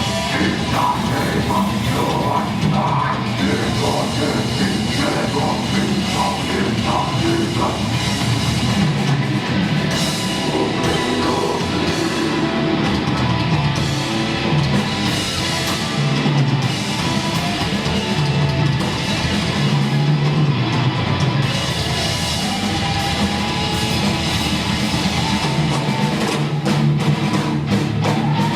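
Heavy rock or metal music with distorted guitars and a drum kit, playing steadily.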